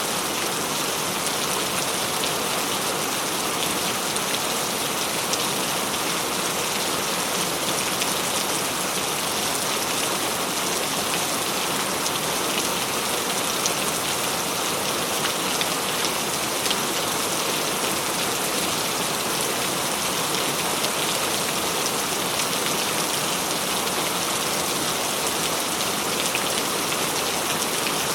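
Steady heavy rain falling and pattering on surfaces, a dense, even hiss with fine droplet impacts and no thunder.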